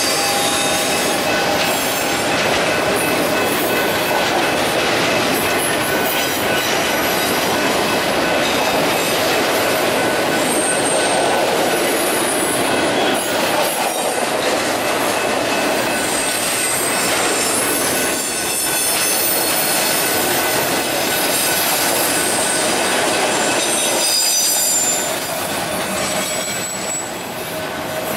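Loaded autorack freight cars rolling past at speed: a steady, loud rumble and rattle of steel wheels on rail, with thin high-pitched wheel squeals coming and going. The sound eases a little near the end.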